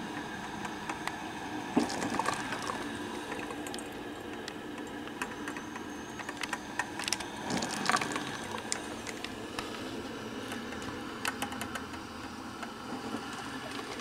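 1985 Black & Decker 8-cup drip coffee maker brewing: a steady hiss with irregular crackles and pops as the water heats and bubbles up through the machine, a few pops louder than the rest.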